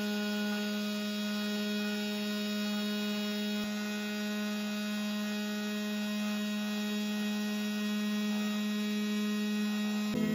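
Makera Carvera Air desktop CNC spindle spinning a single-flute carbide end mill at 12,000 RPM while facing a brass plate: a steady low tone with a ladder of higher overtones.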